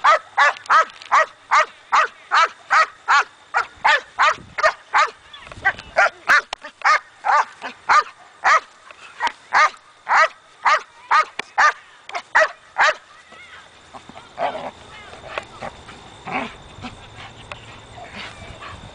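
Belgian Malinois barking hard and fast at a decoy while held on a back tie, about three barks a second in an even run. The barking stops about two thirds of the way through, leaving only softer scattered sounds.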